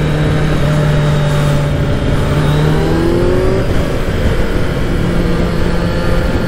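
Kawasaki Z900 inline-four motorcycle engine running under way, heard onboard with heavy wind rush. It holds a steady pitch, rises as the bike accelerates about three seconds in, then drops back to a steady note.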